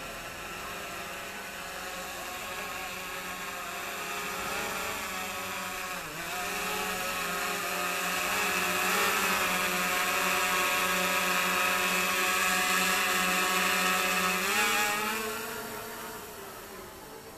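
A quadcopter drone's motors and propellers hum as it flies, a steady buzz of several tones together. The pitch dips briefly about six seconds in. The hum is loudest in the middle, shifts again about fourteen seconds in, then fades toward the end.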